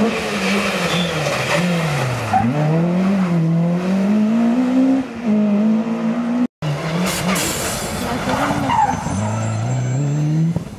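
Rally car engines under hard acceleration: the engine note climbs, drops back at each gear change and climbs again. The sound cuts out abruptly for a moment about six and a half seconds in, and another rally car's engine picks up, revving through its gears.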